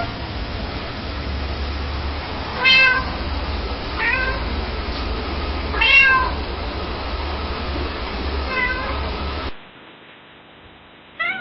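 Domestic cat meowing: about five short meows a second or two apart over a steady low hum. Near the end it cuts to a quieter recording with one more meow.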